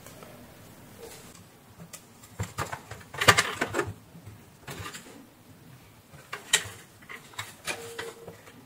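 Irregular clicks, knocks and rustles from a blender's circuit board and its wires being handled and fitted against the plastic base, loudest in a cluster about three seconds in.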